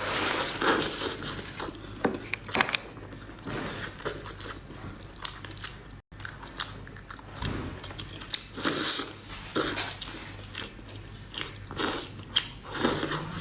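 Close-miked biting and chewing of seafood: irregular wet smacks and crunchy clicks. The sound drops out completely for a moment about six seconds in.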